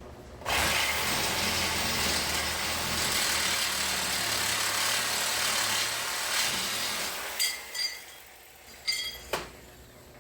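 A power tool working on steel brace stock runs loud and steady for about seven seconds, then stops. A few short, high squeaks and one sharp click follow.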